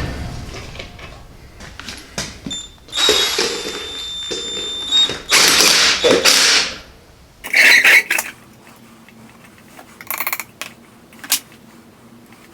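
A Bauer impact wrench running in several short bursts with a motor whine, tightening the quad's wheel lug nuts. It ends with a last rapid hammering burst and a click.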